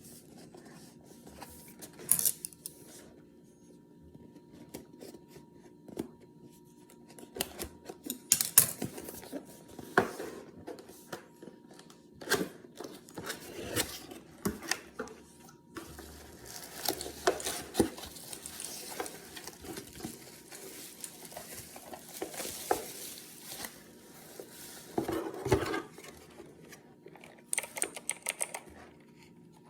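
Box and packaging of a mechanical keyboard being handled and opened: irregular clicks, knocks and rustles of cardboard and plastic, with a quick run of clicks near the end.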